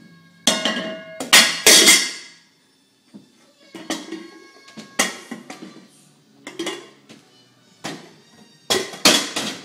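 Metal pans and a stainless steel bowl clanging and clattering as a toddler pulls them out of a drawer and knocks them together and onto the floor, each knock ringing briefly. The loudest clangs come from about half a second to two seconds in and again near the end.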